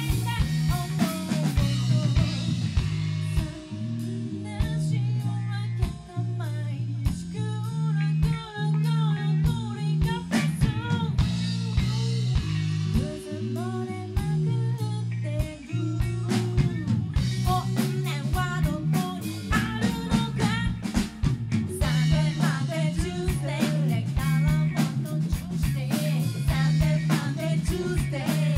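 Live rock band playing: a woman sings lead into a microphone over electric guitar, bass guitar and a drum kit, with a steady drum beat.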